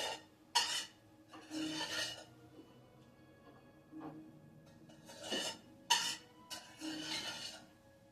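Irregular rasping, rubbing strokes, about six of them, each up to nearly a second long, over faint music.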